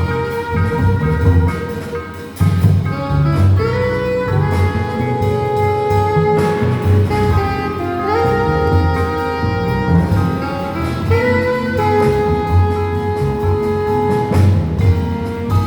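Live jazz band playing, with a lead instrument holding long notes over a steady low rhythm.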